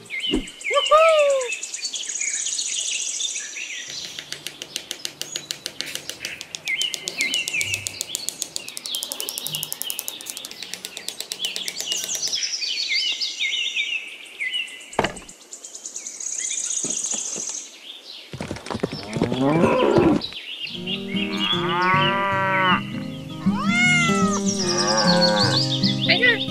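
Farm-animal sound effects: a cat meows about a second in, then comes a long stretch of rapid high chirping and trilling, and near the end cows moo and cats meow over one another.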